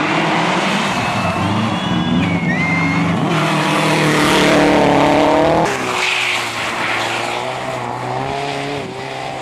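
A Subaru Impreza rally car's engine revving hard through and out of a corner, rising in pitch, with brief tyre squeal in the first couple of seconds. About six seconds in it changes abruptly to a second rally car's engine at lower, steadier revs.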